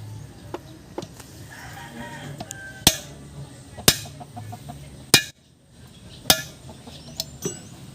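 Hammer striking metal: four sharp, ringing blows about a second apart, with lighter taps and clicks between.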